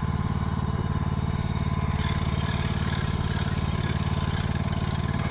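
Engine of the vehicle moving the building, running steadily with a fast, even firing pulse.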